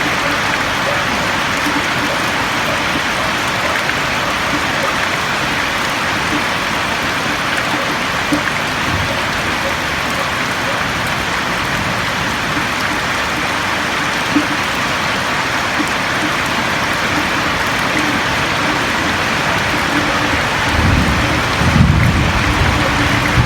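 Steady heavy rain drumming on a roof, an even dense hiss, with a low rumble rising briefly near the end.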